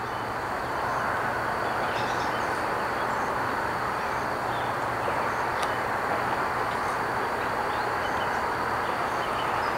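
A long freight train rolling steadily past, its cars making a constant rumble and hiss on the rails, with a faint steady high tone above it.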